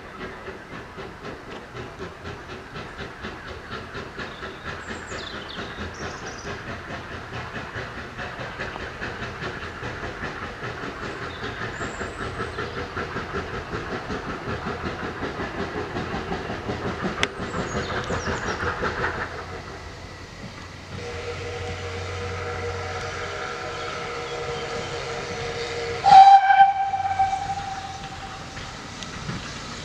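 GWR steam railmotor working toward the camera, its exhaust beating in an even chuff of about three beats a second that grows steadily louder. The chuffing stops about two-thirds of the way through, as steam is shut off. A short, loud steam whistle blast follows near the end.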